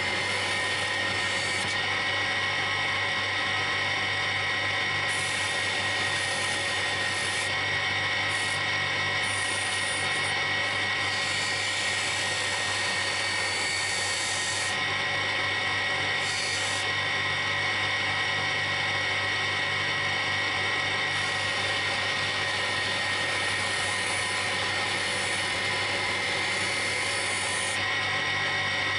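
Belt-driven buffing machine running steadily, a low hum with a high whine from its spinning stitched cloth mops, while a small metal part is held against one mop and polished.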